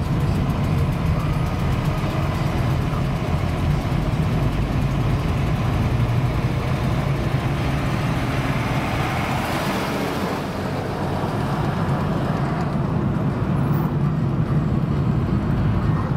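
Steady engine and road noise of a taxi heard from inside its cabin, with a low hum under a rush of tyre noise. About halfway through, a rushing swell of noise rises and fades as the car passes alongside a bus.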